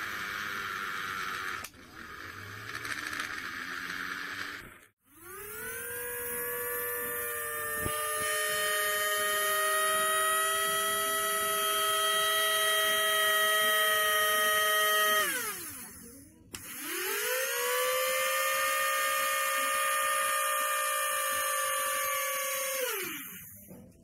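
Small brushed DC hobby motor switched on about five seconds in: a whine that rises as it spins up, then runs steadily, winds down after about ten seconds, then spins up and runs again before winding down near the end.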